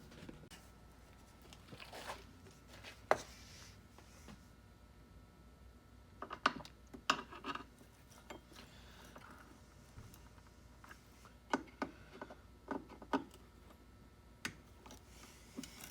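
Intermittent clicks, taps and light scraping of hand work on a key machine's motor and wiring, with small metal parts and tools being handled and set down in short clusters.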